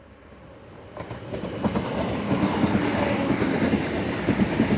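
Diesel passenger train approaching and passing close by, getting louder from about a second in, with the clatter of its wheels over the rails.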